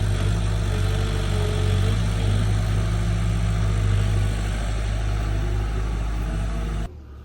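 Excavator engine running steadily with a deep hum, cutting off abruptly near the end.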